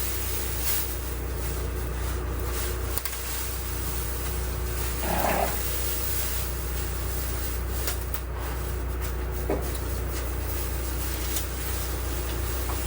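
A single short animal call about five seconds in, over a steady low hum.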